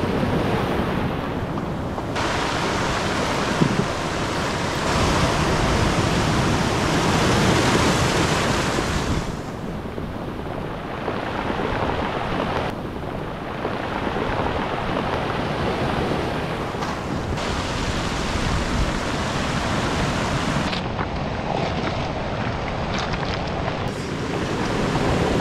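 Ocean surf breaking and washing in over a beach of rounded cobbles, with wind buffeting the microphone. The sound shifts abruptly in level and tone several times.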